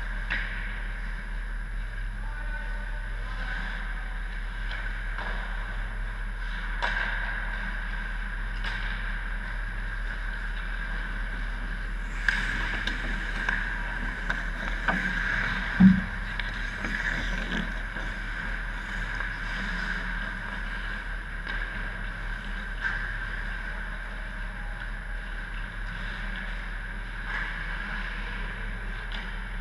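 Indoor ice rink ambience during pickup hockey: a steady arena hum with scattered clicks of sticks, pucks and skates on the ice. Around the middle, skate and stick noise comes close, with one heavy thump, the loudest sound.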